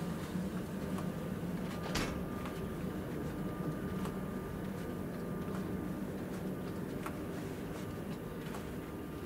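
Steady low hum inside a TGV inOui passenger car, with a faint steady high tone and scattered light clicks and knocks, the sharpest about two seconds in.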